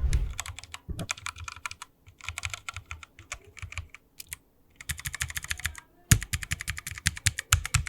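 Fast typing on mechanical keyboards in a sound test of red versus blue switches: four bursts of rapid key clicks with short pauses between them, the last burst, about six seconds in, louder than the rest.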